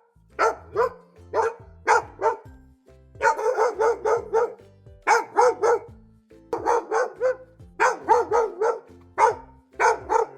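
Dog barking repeatedly: a few single barks, then quick runs of several barks in a row, over soft background music.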